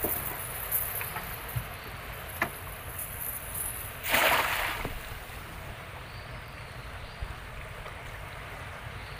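A cast net thrown from a boat lands on the river with one short, loud splash about four seconds in. A few light clicks come before it as the net is handled.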